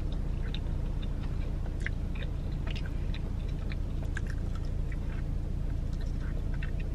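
Close-up chewing and biting of a sauced chicken wing, with scattered small wet mouth clicks and smacks, over a steady low hum.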